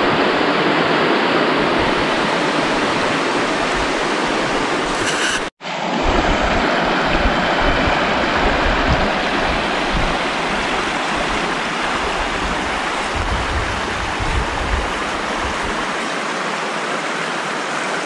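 Fast, shallow mountain stream rushing over rocks and riffles: a steady, even rush of water, broken by a momentary cut-out about five and a half seconds in.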